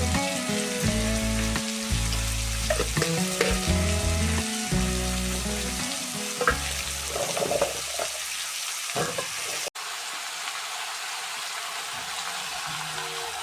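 Chopped vegetables sizzling as they fry in a pot, with a few clicks of stirring. The sizzle cuts out briefly about ten seconds in, then carries on more quietly.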